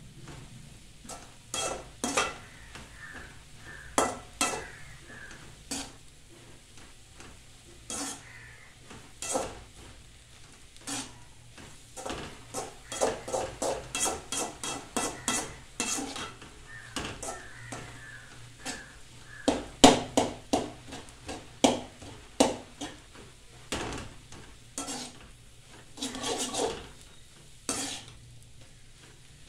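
A slotted metal spatula scraping and clanking against an aluminium kadai as egg and drumstick leaves are stir-fried. The strokes come irregularly, with quick runs of strokes in the middle and one sharp loud knock about twenty seconds in.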